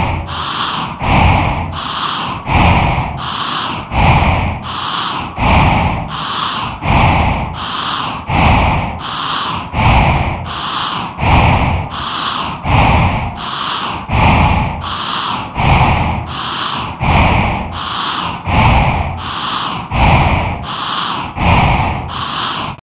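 Cinematic sound effect: a rhythmic pulse repeating about every second and a half, each pulse opening with a loud low hit and trailing into a sweeping hiss. It starts and stops abruptly.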